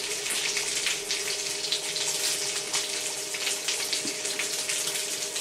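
Food frying in a pan, a steady crackling sizzle with a faint steady hum underneath.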